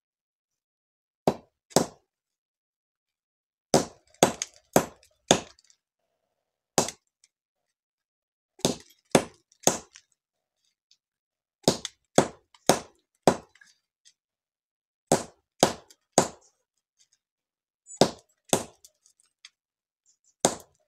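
Sharp knocks, about twenty strikes in runs of two to four at roughly two a second, as hard andız (Syrian juniper) stones are struck to crack them open.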